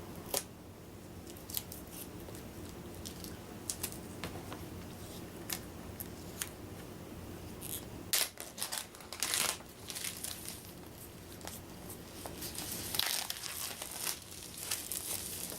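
Thin plastic wrap being torn and pulled off game boards, crinkling in bursts with scattered sharp clicks and snaps.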